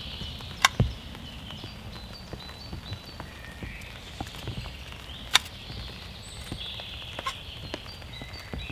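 A metal utensil clinking and scraping in a small outdoor pan, a few sharp clinks, the loudest under a second in and about halfway through. Rain falls steadily and birds sing in the background.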